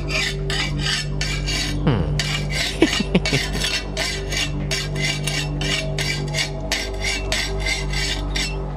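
Rhythmic rasping strokes by hand, about three a second, over a low steady drone.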